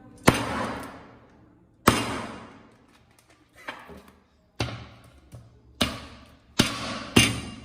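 A series of about seven heavy blows struck at uneven intervals, each sharp onset dying away over up to a second.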